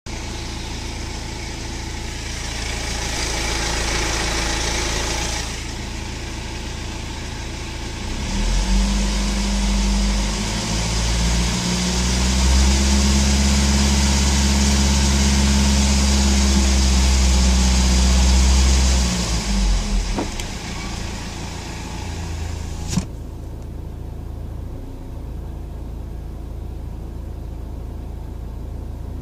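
BMW 118d's N47 four-cylinder turbodiesel idling, then held at a raised engine speed from about 8 seconds to about 20 seconds before settling back to idle. A single sharp click a few seconds after the drop.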